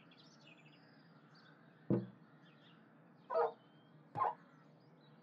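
Faint birds chirping outside, a single knock about two seconds in, then two short squeaks of a cat's paw against window glass.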